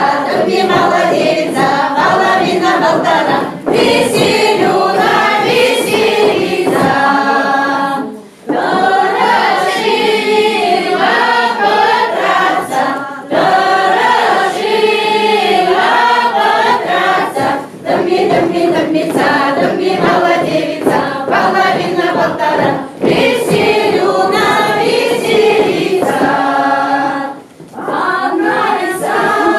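Chuvash folk ensemble of men and women singing a round-dance game song (takmaks) together, in short verses with a brief pause about every four to five seconds.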